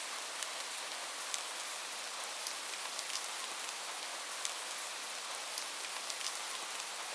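Light rain falling steadily: an even hiss with many scattered individual drop ticks.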